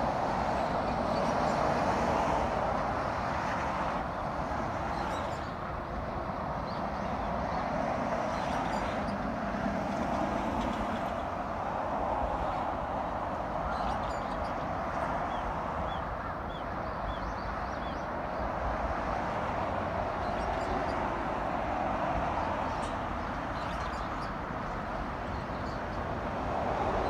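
Steady hum of expressway traffic, tyres and engines swelling and easing as vehicles pass, with a few faint bird chirps around the middle.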